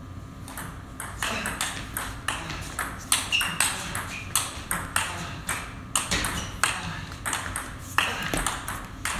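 Table tennis rally: the plastic ball clicking sharply off the rackets and the table in quick alternation, about two to three hits a second, starting about a second in.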